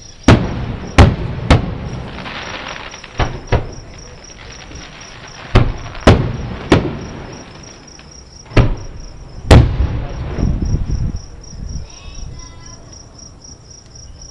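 Aerial fireworks shells bursting: about ten sharp booms at uneven intervals, some trailed by a second or so of crackle. Crickets chirp steadily underneath.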